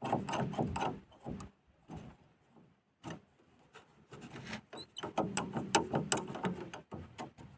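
Handling noises: a run of knocks, clicks and rubbing in two spells, through the first second and a half and again from about four seconds in.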